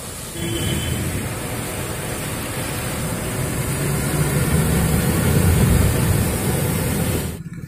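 A fire engine pushes through deep floodwater close by, its heavy engine rumbling under the rush and splash of water thrown up by its wheels. The sound swells as it passes, is loudest in the second half, and cuts off abruptly near the end.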